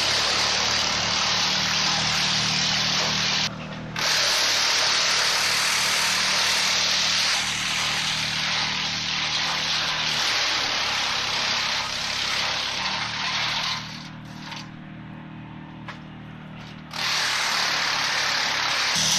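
Flisbjørn wood chipper running under load: a steady engine hum under the loud, dense grinding noise of wood being chipped. The chipping noise drops out twice, briefly near the start and for about three seconds near the end, leaving only the engine running.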